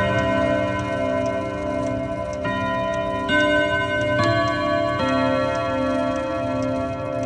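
ODO 54/8 French chiming clock playing its chime melody: struck notes follow one another every second or so, each ringing on into the next, with the clock's ticking faintly underneath.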